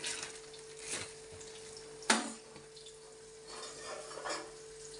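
A few light knocks and clinks of kitchenware, the loudest about two seconds in, with softer scuffs later, over a faint steady hum.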